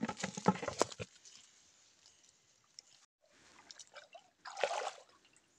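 A quick clatter of a plastic bucket lid being handled, with water moving in the bucket, in about the first second. After a pause, a short splash of water near the end as someone wades in a shallow stream.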